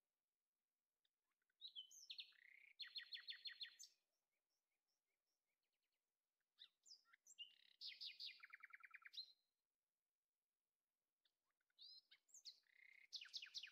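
A small songbird singing three phrases a few seconds apart, each a few short sliding notes running into a fast, even trill of about ten notes a second.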